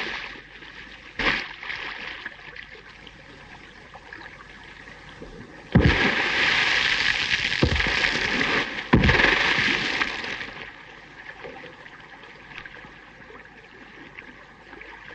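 Heavy splashing of a person thrashing in lake water: a sudden burst about six seconds in that lasts about four seconds, with a few hard slaps of water in it, then dies away to a faint hiss.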